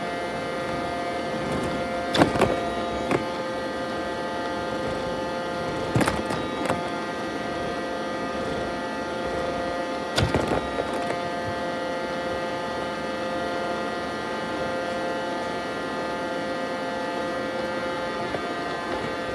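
Roomba robot vacuum running with a steady whining hum, with a few short knocks about 2, 6 and 10 seconds in.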